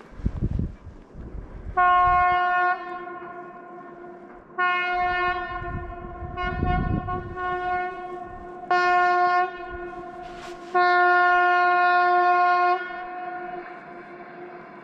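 Train horn sounding several blasts on one steady pitch, the longest lasting about two seconds near the end, over a low rumble.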